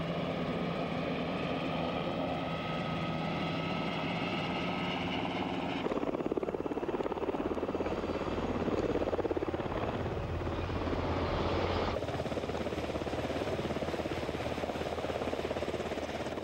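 UH-60 Black Hawk helicopter running: a steady turbine whine over a rhythmic rotor beat. The sound changes abruptly about six and about twelve seconds in, as the footage cuts between shots.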